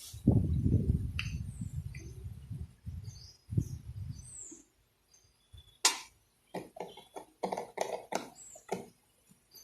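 A plastic infant feeding bottle of formula being rolled and shaken between the palms to dissolve the powder: a rubbing noise for the first few seconds and again briefly, then a run of quick knocks in the second half. Small birds chirp faintly in the background.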